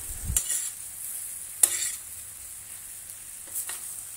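Chicken and vegetables sizzling in a stainless steel frying pan while being stirred with a metal spoon, the spoon knocking and scraping against the pan a few times, loudest about one and a half seconds in.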